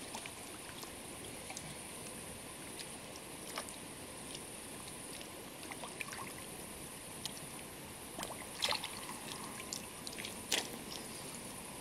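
Soft water sloshing and small splashes from hands working a small fish in shallow river water, with a few short, sharper splashes, two of them in the last few seconds.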